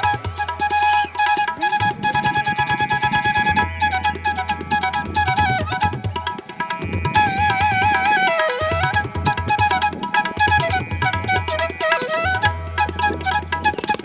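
Background music: an Indian-style instrumental with a wavering, ornamented melody line over a steady hand-drum rhythm.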